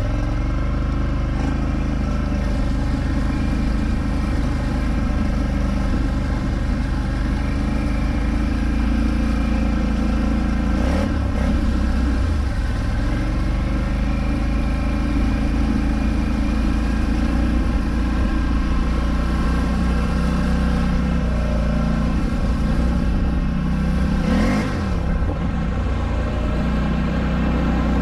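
Polaris Scrambler 1000 ATV's twin-cylinder engine running under load while it ploughs through deep water, its revs rising and falling, with a quick drop and pick-up about 24 seconds in. Water rushes and splashes against the machine.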